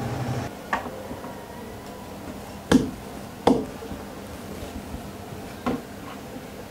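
Sharp little clicks and knocks of thin plywood puzzle pieces being handled, fitted onto a wooden train model and set down on a tabletop: four separate taps, the two loudest close together near the middle. A low hum stops about half a second in.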